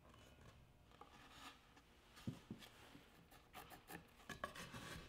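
Faint pencil scratching on a 2x4 molding as a line is marked, with a few light taps and rubs of wood being handled.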